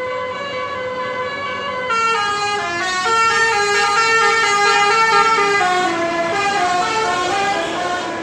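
Indonesian 'telolet' musical bus horn playing a tune: several horn trumpets sounding together, stepping from note to note.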